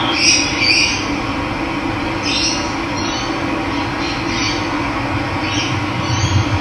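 Steady rush of running water, with a bird giving short calls about eight times over it.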